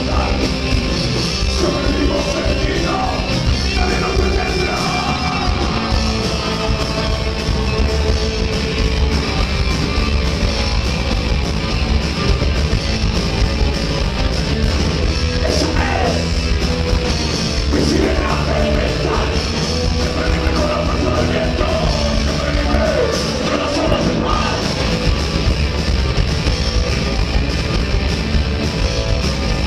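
Rock band playing a heavy rock song live, loud and continuous, with a singer's voice coming through mostly in the middle stretch.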